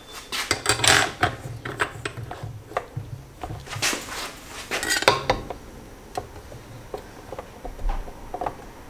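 Small metal clinks and taps as a steel M10 screw and a steel ruler are handled and fitted against a brake booster's clevis fork. The clicks are thickest at the start and again about four seconds in, then come only now and then.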